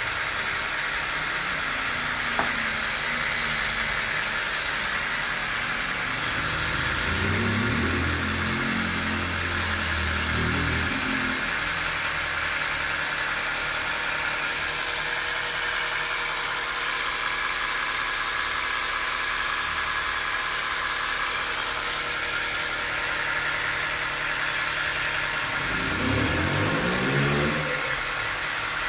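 Multilaser 12 V mini air compressor running steadily as it slowly inflates a very low car tyre. Twice a louder low rumble swells and fades, about a quarter of the way in and near the end.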